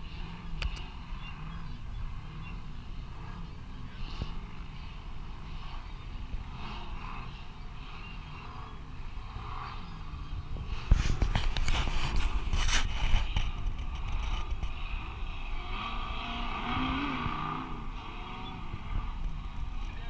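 Off-road race vehicles' engines revving in the distance, the pitch rising and falling as they work through the course. About eleven seconds in a louder, rough stretch of noise lasts a couple of seconds.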